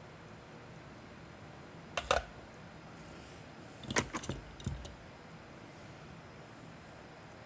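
Small hard objects being handled on a bench: one sharp clatter about two seconds in, then a quick cluster of clicks and knocks a couple of seconds later, over a faint steady room hiss.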